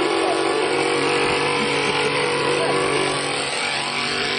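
Small model-aircraft engine running steadily at high speed.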